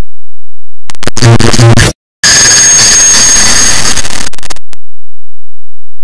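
A clock-tick sample sped up to an absurd rate until it breaks down into loud distorted digital noise. About a second in comes a low buzz lasting about a second, then a brief cut, then about two and a half seconds of dense noise with a thin high whine, which stops suddenly.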